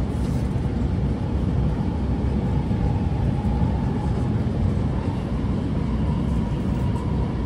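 Running noise of an SMRT R151 metro train at speed, heard from inside the car: a steady low rumble of wheels on rail with a faint, steady high tone.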